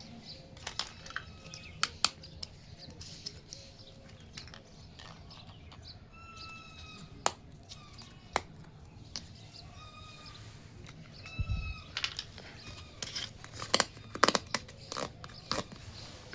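Small plastic toy-kitchen pieces being handled and set down: scattered sharp clicks and taps, with a cluster of them near the end and one dull thump about halfway through. Short bird chirps come in now and then.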